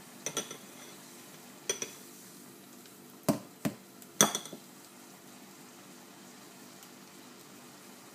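Metal tongs clinking against a ceramic bowl of liquid nitrogen: about six sharp, ringing clinks in the first half, the loudest about four seconds in as a frozen strawberry is lifted out.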